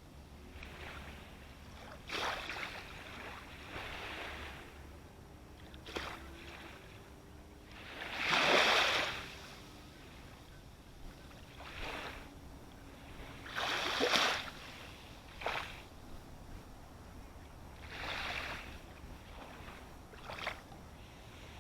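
Sea waves breaking and washing up close by, a rush of surf swelling and falling away every few seconds; the biggest waves come about eight and fourteen seconds in.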